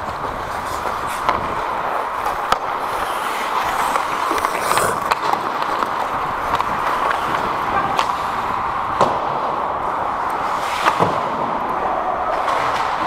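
Ice hockey play heard up close: skate blades scraping and carving on the ice over a steady rushing noise, with sharp clacks of sticks and puck every second or few, the loudest about nine and eleven seconds in.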